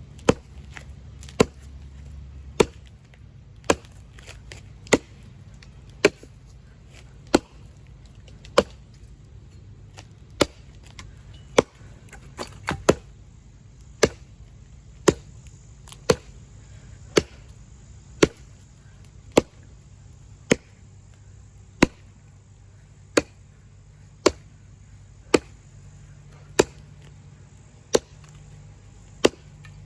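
A Kelly Perfect axe chopping branches off a fallen pine tree: sharp, single strikes at a steady pace of about one a second.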